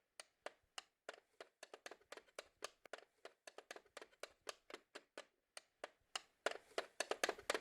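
A quick, irregular run of light taps on a hard surface, about three to five a second, growing louder near the end.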